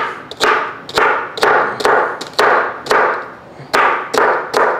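A dull chef's knife chopping celery stalks on a plastic cutting board: about ten crunchy cuts, roughly two a second, each ending with a thud of the blade on the board. The knife isn't sharp, so each cut takes a hard push, which makes the celery loud to cut.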